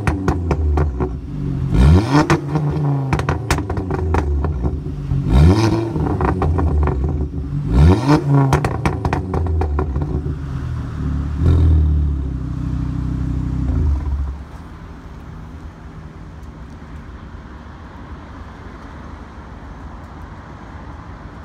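Ford Focus ST225's turbocharged five-cylinder engine on a stage 4 tune, breathing through a Cobra Venom turbo-back exhaust, blipped on light throttle while stationary: each rev rises and falls back, followed by bursts of pops and crackles on the overrun. About 14 seconds in the engine sound drops away, leaving a faint steady hiss.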